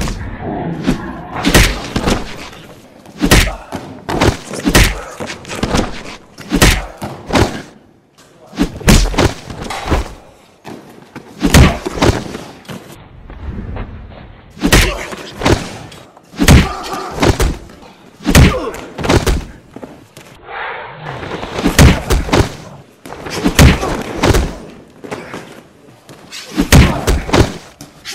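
Stunt fight rehearsal: a run of sharp thuds and slams as performers kick, strike, flip and land falls on crash mats, often in quick pairs or threes, echoing in a large hall.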